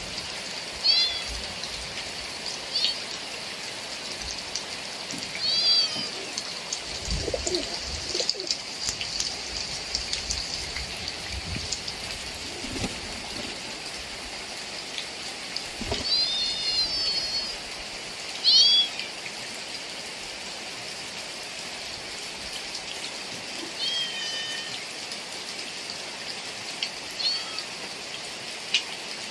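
Steady rain falling, with a bird giving short, arching calls every few seconds over it.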